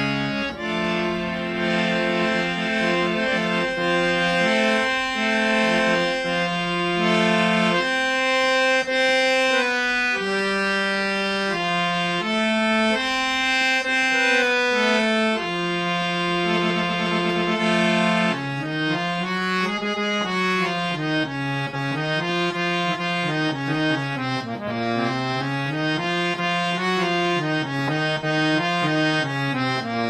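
Budget hand-pumped harmonium playing a melody in sustained reed notes, one every second or two. From about two-thirds of the way through it moves into quick runs of notes that rise and fall over and over.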